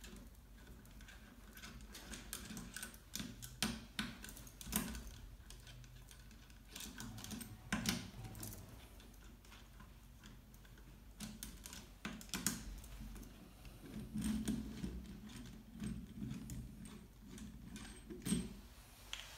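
Faint, irregular clicks and small metallic taps of a T-handle hex key and screwdriver working the mounting screws of a MAC solenoid valve to unbolt it from its manifold base, with a few louder knocks scattered through.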